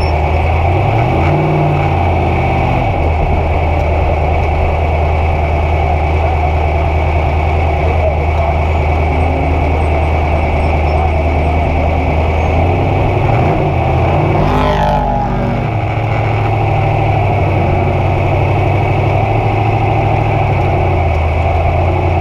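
A 900 hp trophy truck engine idling heard from inside the cab, blipped up and back down about a second in and revved again around two-thirds of the way through.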